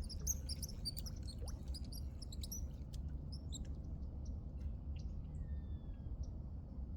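Small birds chirping, many quick high chirps in the first few seconds and then sparser, with a couple of thin falling whistles, over a steady low rumble.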